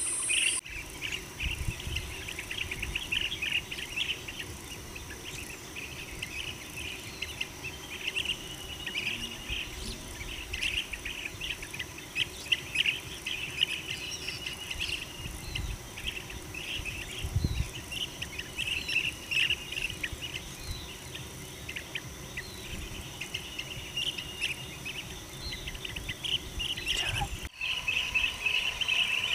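Many short bird chirps and calls over a steady, high insect drone, with two brief dropouts in the sound near the start and near the end.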